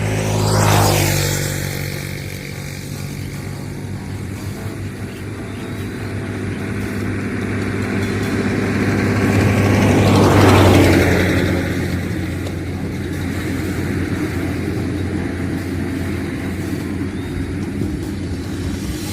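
Road traffic passing close by: one vehicle goes past about a second in and another, louder, about ten seconds in, each swelling and fading away, over a steady low engine hum.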